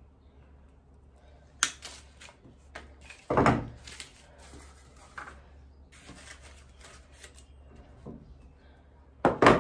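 Silk hydrangea stems being trimmed and handled with wire cutters: a sharp snip, a heavier knock against the wooden table a couple of seconds later, then light clicks and rustles of the stiff stems and fabric leaves, with a louder pair of clicks near the end.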